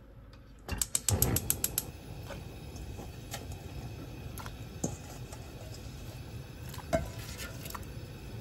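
Gas stove burner igniter ticking rapidly for about a second, then the lit burner running with a steady noise under a pot of water. A few single light taps and splashes follow as sliced lotus root is dropped into the water.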